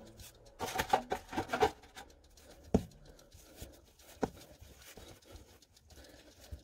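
Hands rubbing and knocking close to the microphone. A quick cluster of knocks and rubs comes in the first two seconds, followed by three single sharp knocks spaced a second or more apart.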